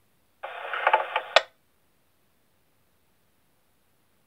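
Radio scanner on a fire-service channel letting through about a second of narrow-band, telephone-like noise and crackle from a brief transmission. It ends with a sharp squelch click, and the audio then cuts to silence as the squelch closes.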